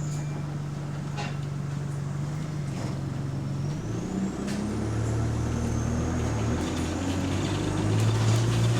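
Bus engine and drivetrain heard from inside the passenger cabin, running steadily. About four seconds in, the engine note drops lower and grows louder as the bus pulls under load, with a faint rising whine and a few light rattles.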